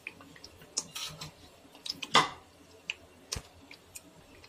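Thick masala gravy cooking in a non-stick pot, giving scattered light clicks and pops, with a louder knock about two seconds in and another, duller one near the end.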